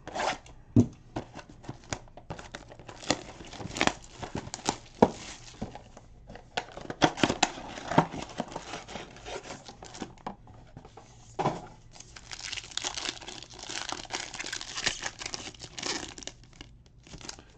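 Hands opening a Panini Prizm football blaster box: a box cutter slits the seals, and the cardboard box scrapes and clicks as it is pulled open. About two-thirds of the way in, a foil card pack crinkles steadily as it is torn open.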